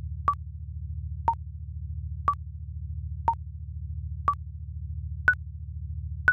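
Countdown timer sound effect: short electronic beeps once a second, alternating between two pitches and stepping higher for the last ones, over a low pulsing synth drone.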